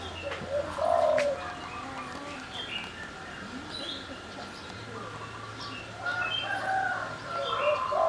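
Caged doves cooing: one call about a second in and a longer run of coos from about six seconds, with small birds chirping throughout.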